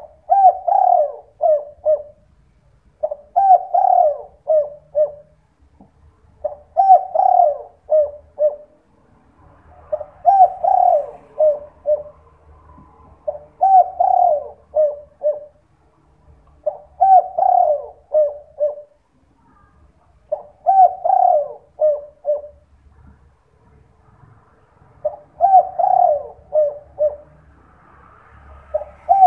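Spotted dove (derkuku) singing its 'kuk 2' coo: a phrase of rolling coos that ends in short clipped 'kuk' notes, repeated about eight times, one every three to four seconds.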